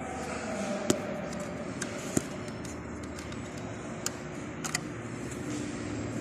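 Steady background hum with a few short, sharp handling clicks scattered through it.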